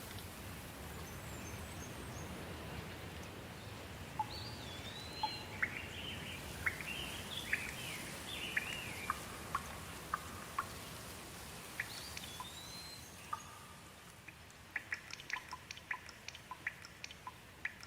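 Steady rain with birds singing over it: a run of whistled, sliding notes and short chirps through the middle, then a quick flurry of short, sharp ticks near the end.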